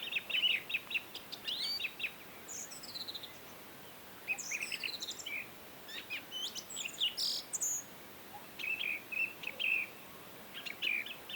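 Several songbirds singing and chirping: bouts of quick repeated chirps and descending whistled phrases, with short pauses between bouts, over a faint steady hiss.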